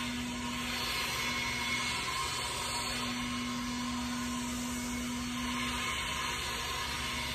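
A handheld lawn power tool running steadily at a distance, a constant motor drone with an even whine over it.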